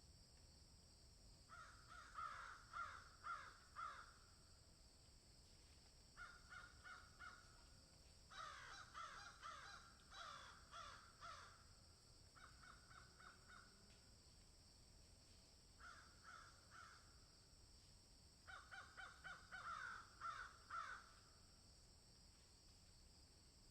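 Crows cawing in repeated bouts of quick caws, some bouts with calls overlapping, with pauses of a second or two between bouts.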